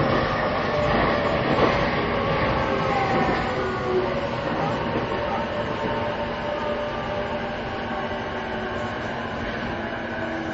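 Inside a JR East E233-2000 series electric commuter train running between stations: a steady rumble and hiss of wheels on rail with faint whining tones, getting gradually a little quieter.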